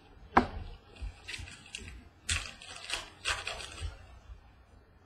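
Donruss baseball trading cards handled and shuffled by hand: a sharp tap about half a second in, the loudest sound, then several short swishes as cards slide against one another.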